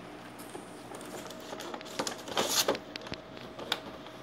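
Clear rigid plastic toy packaging being pulled off its cardboard backing: scattered clicks and crinkling, with a louder crackle about halfway through.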